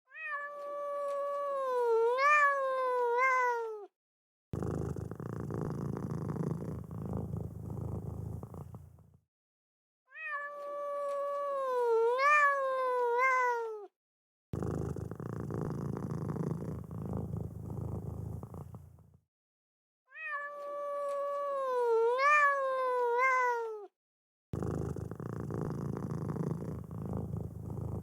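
A cat making a long, wavering meow of about four seconds that falls in pitch at its end, followed by about four seconds of rough, raspy heavy breathing. The pair repeats three times at even ten-second intervals, like a loop.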